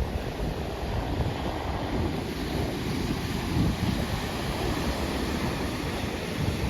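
Sea surf washing on the shore, with wind gusting on the microphone as low, uneven rumbles.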